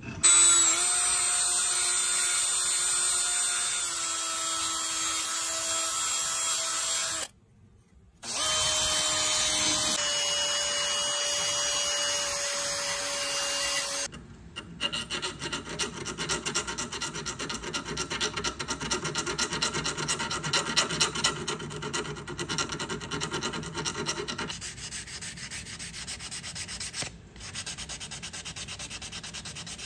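A small high-speed rotary tool with a polishing wheel spinning with a steady whine, then polishing a steel part of an air screwdriver, heard as rapid scratchy rubbing. Near the end, abrasive paper is rubbed by hand over the part.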